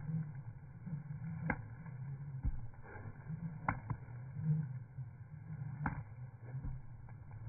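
Jump rope swishing round during continuous skipping, with a few sharp slaps about two seconds apart, over a steady low rumble.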